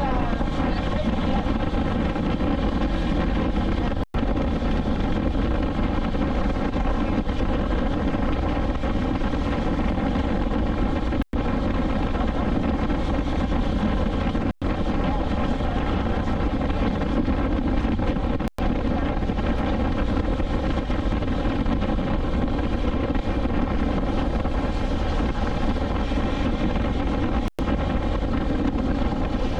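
BMW S1000XR's inline-four engine running at a steady speed while the motorcycle cruises, an even, unchanging engine note. The sound drops out for an instant five times.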